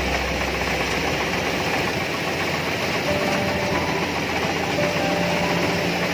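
Rice combine harvester running while cutting rice, a steady engine and machinery drone with the reel and cutter working, and a faint whine that comes and goes in the second half.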